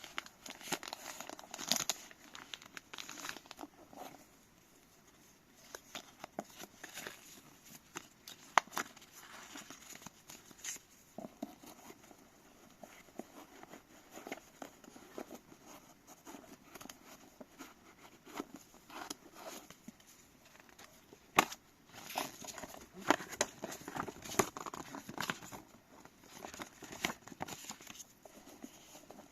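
Lens packaging being unwrapped and handled by hand: crinkling and tearing of wrapping in irregular bursts, with scattered sharp clicks and taps.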